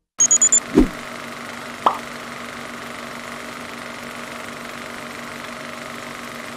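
Subscribe end-card sound effects: a rapid run of glitchy electronic blips with a high whistle, a quick falling sweep and a short rising zip, then a steady mechanical whirring hum.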